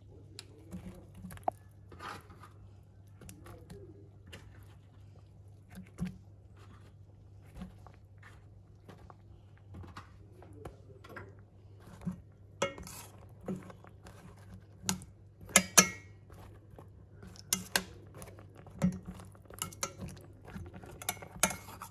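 Metal spoon knocking and scraping against a stainless steel cooking pot as eggplant chunks are dropped in and stirred into the broth: a scatter of clinks and soft thumps, busier and louder in the second half.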